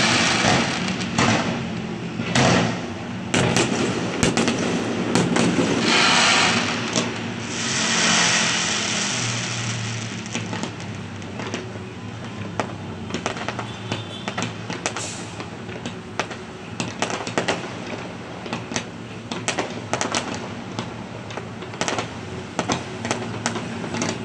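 Fireworks going off: sharp bangs of bursting shells and longer noisy rushes in the first several seconds, then a dense, rapid crackling of many small pops.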